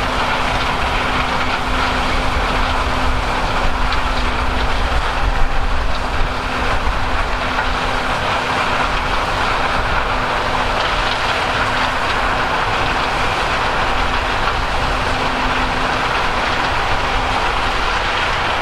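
Large diesel harvest machinery running steadily, giving a dense, even mechanical noise over a low rumble. A steady hum runs under it and drops away near the end.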